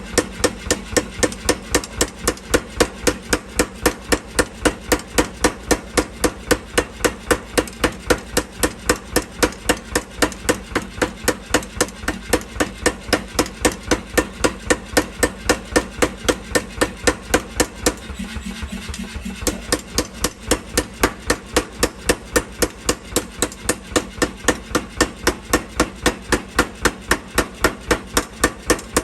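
Mechanical power hammer striking hot steel in a fast, even rhythm of about three to four blows a second, over the steady hum of its motor; the blows go lighter for about a second past the middle.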